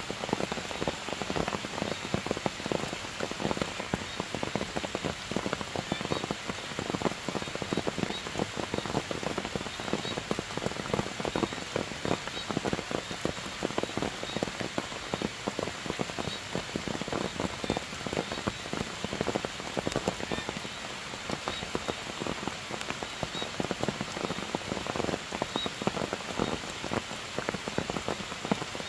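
Heavy rain falling steadily on forest foliage, a dense run of individual drops striking close by.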